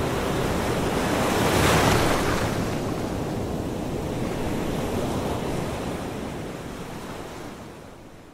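Ocean surf breaking on a beach, a wave surging loudest about two seconds in, then the sound fading steadily away near the end.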